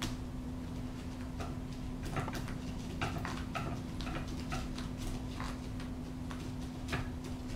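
Peregrine falcon feeding on quail meat: irregular short sharp clicks and snaps of its beak tearing at the meat, over a steady low hum.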